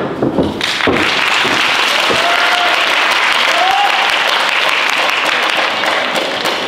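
Audience applauding steadily in a hall, the clapping swelling about a second in, with a couple of brief calls over it.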